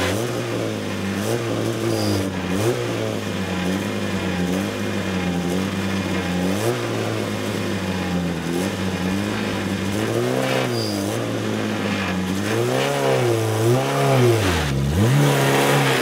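Rally car's engine idling steadily, then revved up and down several times in short blips near the end as the car, stuck in the grass verge after going off the road, is pushed and driven back onto the tarmac.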